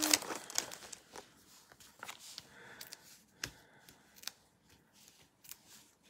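Light rustling and scattered small clicks of paper being handled: foam adhesive dimensionals peeled from their backing sheet and pressed onto a cardstock panel.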